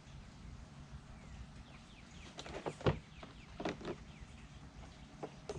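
Faint bird chirps over low outdoor rumble, with a few sharp clicks or knocks in the middle, the loudest just under three seconds in.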